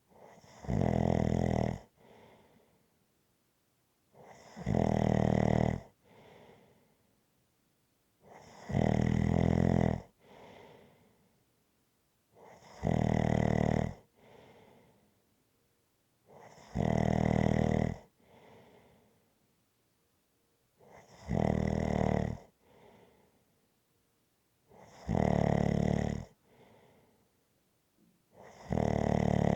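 A person snoring in a slow, regular rhythm: a loud pitched snore about a second long roughly every four seconds, each followed by a fainter breath.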